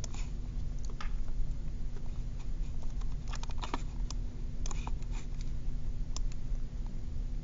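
Scattered computer mouse clicks and taps, bunched in short clusters, over a steady low hum.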